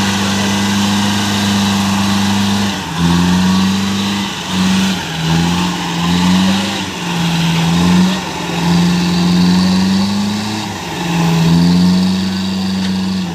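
Small six-wheel truck's engine held at raised revs, then let drop and brought back up several times, the pitch dipping and climbing in uneven surges.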